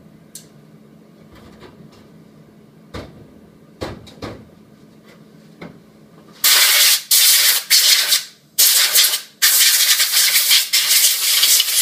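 A few scattered knocks as parts and the cabinet are handled, then, from about six and a half seconds in, compressed air hissing loudly in about five bursts with short breaks, cut off abruptly at the end.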